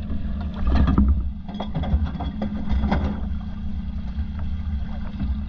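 Muffled river water lapping and splashing around a camera at the waterline, with scattered sharp splashes and a steady low rumble.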